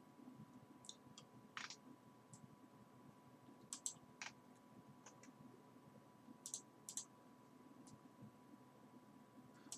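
Near silence, with faint scattered clicks from a computer mouse and keyboard, about nine of them, unevenly spaced. A faint steady tone hums underneath.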